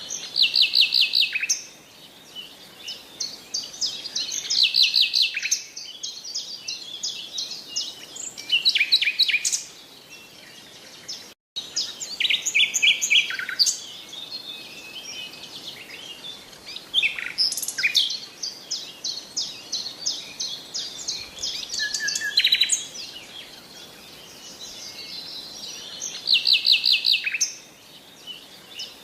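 Birdsong: bursts of fast, high trills and chirps every few seconds, with a brief dropout to silence about eleven seconds in.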